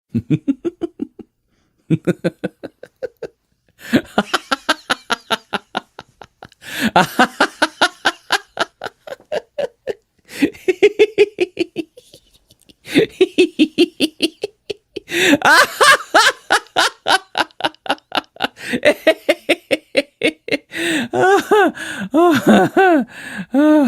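A man laughing hard in repeated bouts of quick, rhythmic laugh pulses, several a second, with short breaks for breath between bouts. In the last few seconds the laughs climb higher in pitch.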